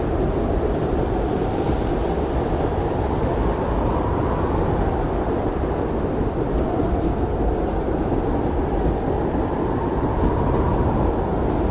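Strong blizzard wind blowing steadily, a deep low rush with a hollow howl that slowly swells and fades in pitch.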